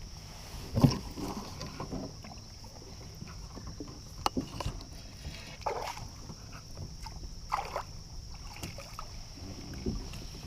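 Kayak handling on a river: scattered light knocks and brief water swishes, the sharpest knock about a second in, over a steady high-pitched hum.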